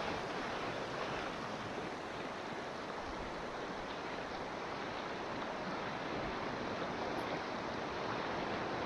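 River water rushing and splashing around a moving kayak: a steady, even hiss of current.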